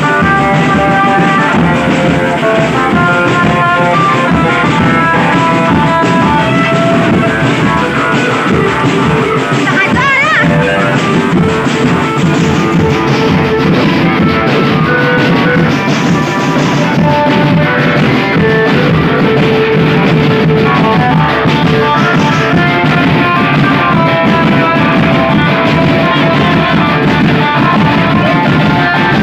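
Rock-style music with guitar and a drum kit, loud and continuous.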